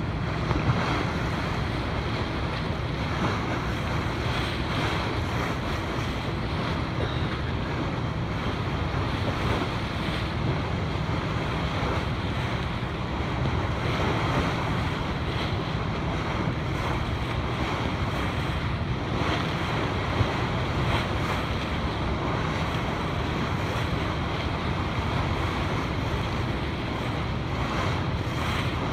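Sea water rushing and slapping around a moving boat, with wind buffeting the microphone, steady throughout. A low, steady drone runs underneath.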